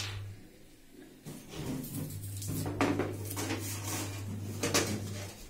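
Sheet-metal desktop PC tower being laid on its side on a wooden table and its steel side panel handled, a series of knocks and metallic clatter.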